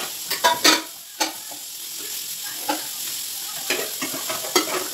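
Metal pots and pans clanking and knocking against each other as they are put away in a kitchen cabinet: a quick cluster of knocks at the start, then single knocks spaced a second or so apart, over a steady hiss.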